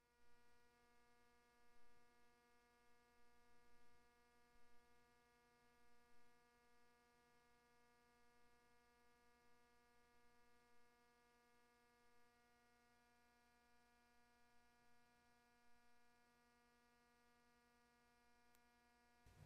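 Near silence: a faint, steady electrical hum with a buzzy edge.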